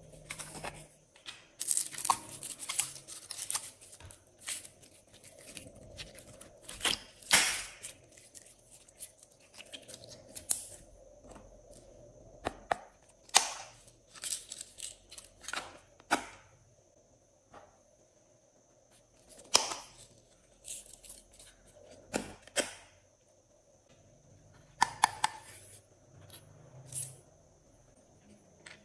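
Small plastic compartment cases clicking open and shut and plastic sequins and charms rattling as they are tipped out onto slime. It comes as an irregular string of sharp clicks, snaps and crackles with short pauses between.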